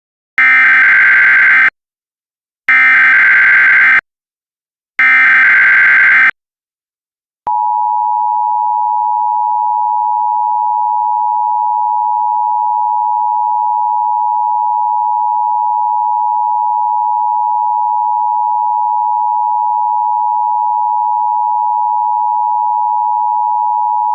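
Emergency Alert System tones: three identical bursts of warbling SAME header data, about a second apart, then the two-tone EAS attention signal (853 and 960 Hz together) starting about seven and a half seconds in and holding steady as one harsh, unchanging tone, announcing an emergency alert.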